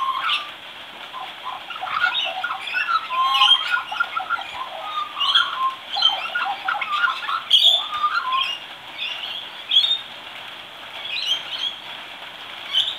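Young Australian magpie practising its song: a quiet, rambling subsong of short warbled and chirped notes that jump about in pitch, with a quieter spell about two-thirds of the way through.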